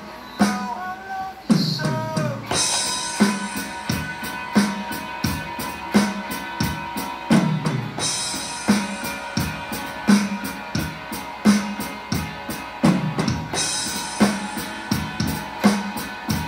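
Medeli DD-315 tabletop electronic drum pads struck with sticks, their sampled kit keeping a steady beat with kick and snare. About every six seconds comes a descending tom fill that ends on a crash cymbal. Underneath plays a pitched music backing.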